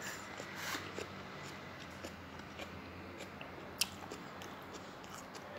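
Person chewing crisp raw salted vegetables close to the microphone: soft, irregular crunches, with one sharper click about four seconds in.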